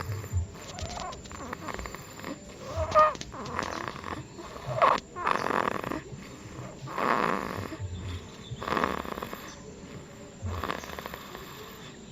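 A small child snoring in sleep, with slow, rhythmic breaths about every two seconds.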